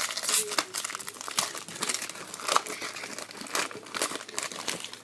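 Baseball card pack wrapper crinkling in the hands as it is torn open, a rapid irregular crackle with louder snaps here and there.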